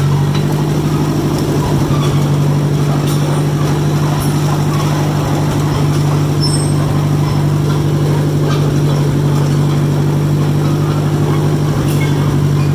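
John Deere 1010 crawler's carbureted gasoline engine running steadily, with a strong, even low hum and a few faint light clicks and rattles. The owner says the engine is running rich.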